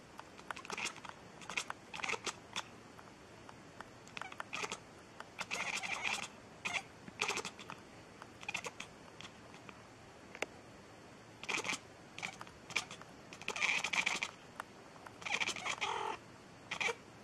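Cat meowing in a rapid series of short calls with brief gaps between them, with a few longer meows midway and near the end.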